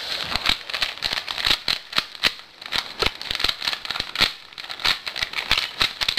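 Silicone-lubricated Rubik's Cube being scrambled by hand: quick, irregular clicking and rattling as its layers are twisted.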